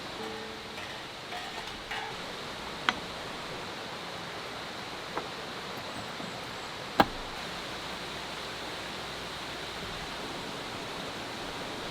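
Steady rushing outdoor background noise, with a few sharp clicks or knocks: a louder one about seven seconds in and a smaller one near three seconds.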